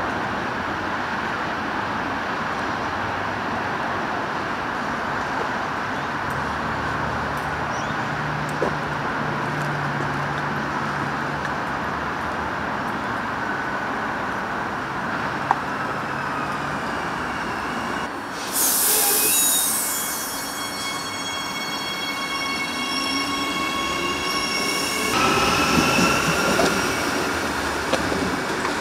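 Adelaide Metro 4000 Series electric train arriving and standing at a platform with a steady rumble. About two-thirds of the way in there is a sudden loud hiss with a set of steady high tones. Near the end the electric motor whine rises in pitch as the train pulls away.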